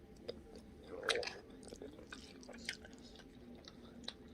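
Faint chewing and mouth sounds of a person biting into and eating a chicken nugget, in scattered soft clicks with a louder bite about a second in.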